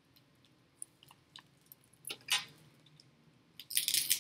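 Hands handling a still-sealed oracle card deck box: scattered small clicks, a short rustle about two seconds in, and a denser crackling rustle near the end.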